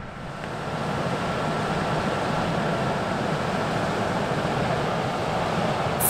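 John Deere T6 700 combine harvester running under load while harvesting, a steady low engine hum under a broad rushing noise that swells over the first second and then holds steady.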